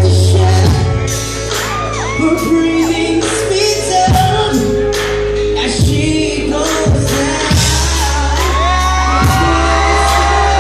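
Live concert music: a male singer's sung vocal with gliding, held notes over a backing of deep sustained bass and regular drum hits.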